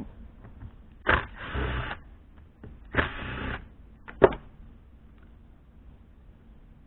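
Cordless impact driver backing out the chainsaw's oil-pump screws in two short bursts, about a second and a half apart, followed by a single sharp knock.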